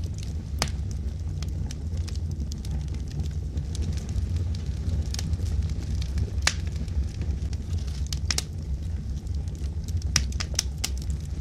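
Wood fire burning in a fireplace: a steady low rumble of flames with sharp, irregular crackles and pops from the logs, the loudest pop about six and a half seconds in.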